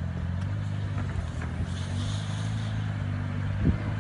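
BMW X4's engine running steadily under light load as the SUV climbs slowly onto a wooden log ramp, with a single thump near the end.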